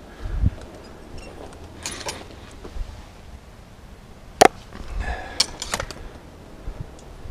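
A sharp knock about four seconds in, among scattered light clicks and a low thump near the start.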